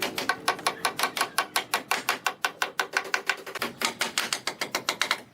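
Rapid, evenly spaced sharp taps, about six a second, typical of light hammering on wood.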